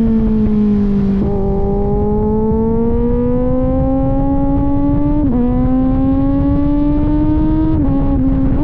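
Kawasaki Z900 inline-four running through an aftermarket AR exhaust on the move. The note eases off at first, steps up about a second in, then climbs slowly as the bike pulls. It breaks briefly near five seconds and again near eight seconds. Wind rush sits underneath.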